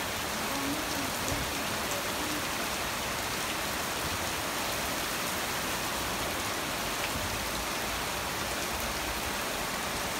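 Steady rain falling on a wet street, an even, unbroken hiss.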